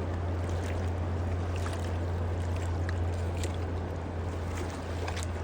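Running water flowing steadily, with small splashes and drips over a continuous rushing sound and a steady low hum underneath.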